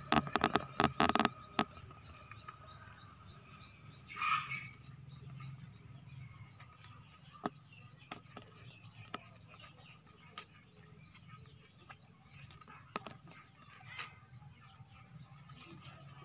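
Plastic grafting tape crackling and snapping as it is stretched and wound around grafted avocado stems, loudest in the first second or so, then soft scattered clicks as the wrapping goes on. A brief louder burst comes about four seconds in, and short high chirps repeat steadily in the background.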